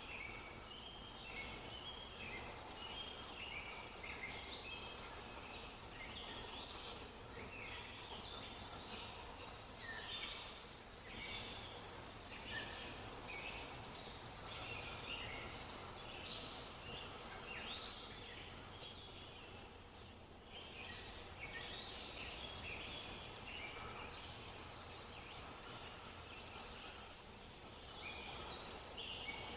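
Small birds chirping in a busy chorus of short, high calls, one after another, over a faint steady background noise.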